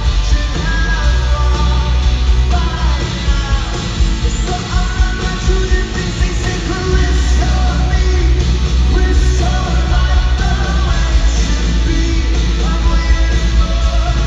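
Live rock band performing with a singing voice over a heavy, steady bass.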